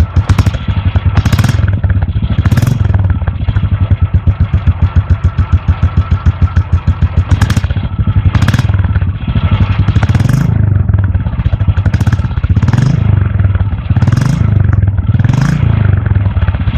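Royal Enfield Classic 350's single-cylinder engine idling with its even exhaust thump, blipped several times so the beat quickens and rises briefly before settling back to idle.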